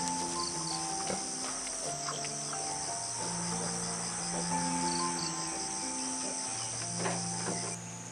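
Insects keep up a steady high-pitched drone that drops off abruptly near the end, over soft background music of slow, held notes.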